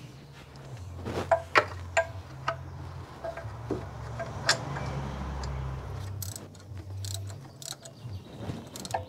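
Scattered metal clicks and taps of a timing belt guide pulley and its bolt being fitted by hand to the engine front, more of them near the end, over a steady low hum.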